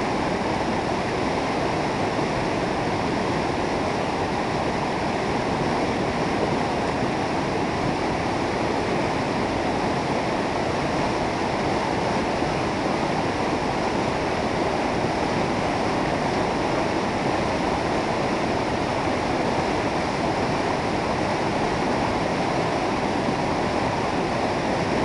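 Mountain river rushing through whitewater rapids over rocks: a steady, unbroken noise of churning water.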